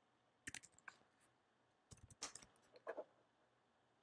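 Faint computer mouse clicks and keyboard keystrokes in a few short clusters: a dimension value being typed in and confirmed.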